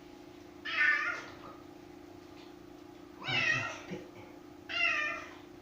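Domestic cat meowing three times, each call under a second long, over a steady low hum.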